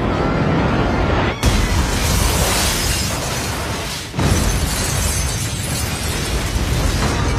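Film sound effects of an alien spaceship crashing into a glass skyscraper: a woman screams, then a sudden crash and explosion about a second and a half in, with glass shattering, and a second blast about four seconds in that goes on as a continuing rumble of fire and debris.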